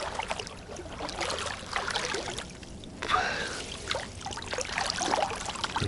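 Water splashing and trickling in irregular bursts as a collapsible fish keep net is handled and set in the shallows.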